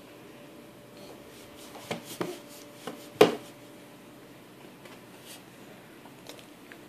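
Quiet room tone with a few scattered small taps and knocks, the loudest about three seconds in: handling noises around a baby being spoon-fed at a plastic high-chair tray.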